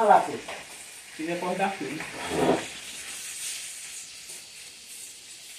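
A few short, indistinct spoken words, then a faint steady hiss.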